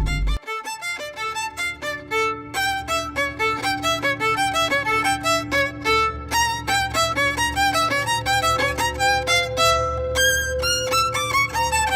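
Music: a fast melody of short, quick notes over a held low tone, with a few sliding notes near the end.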